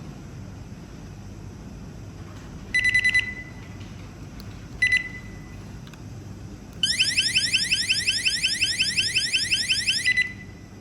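Wireless magnetic door alarm beeping twice, then sounding its electronic alarm: a fast rising warble, about nine sweeps a second, for about three seconds before cutting off.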